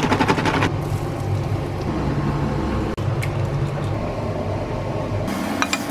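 A can of spray oil rattles as it is shaken over a non-stick frying pan, over a steady low mechanical hum. Near the end, a crackling hiss of food starting to sizzle in the pan joins in.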